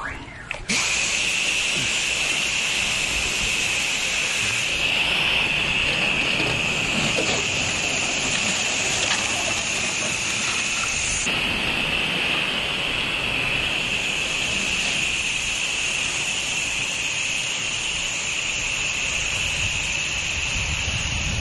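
Pressure washer spraying water: a steady, loud hiss of the high-pressure jet that starts abruptly under a second in. The sound of the spray changes a little about halfway through.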